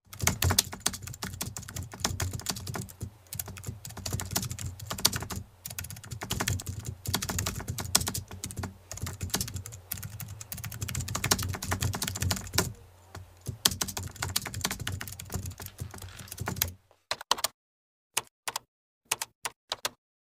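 Computer-keyboard typing used as the sound effect for on-screen text being typed out: a fast, dense run of key clicks with a low hum beneath, which thins to a few scattered clicks for the last few seconds and then stops.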